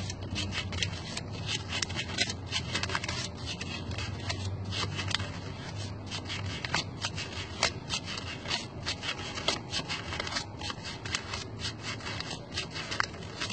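A folded stack of paper banknotes being counted by hand, the notes flicked off one at a time with the fingers: a fast, irregular run of papery flicks and rustling.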